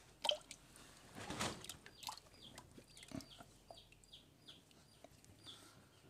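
Young poultry chicks, about six days old, peeping faintly: a string of short, high, falling chirps, several a second. A sharp click comes just after the start and a brief rustling noise about a second in.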